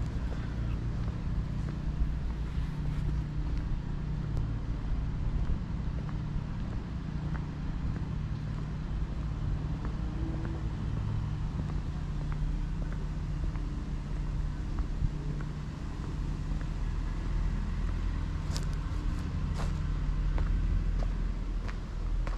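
A motor vehicle's engine running, a steady low hum.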